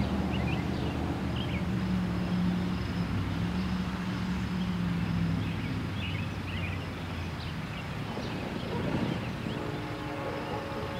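A low engine rumble fades over the first seven seconds while small birds chirp. About nine and a half seconds in, a distant multi-note locomotive air horn chord starts and holds: the Nathan K5LLA five-chime horn of the approaching Union Pacific SD70ACe.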